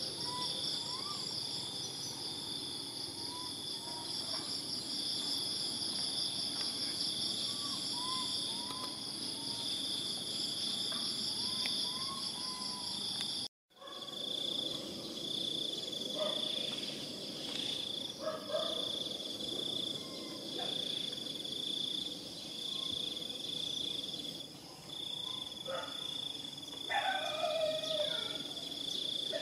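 Steady insect chorus, a continuous high pulsing drone, with short rising-and-falling calls repeated every second or two in the first half. It drops out for a moment about halfway through, then carries on with scattered soft sounds and a louder short call near the end.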